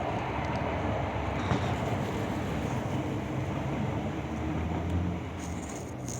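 Steady low mechanical rumble of a passing heavy vehicle, easing off near the end.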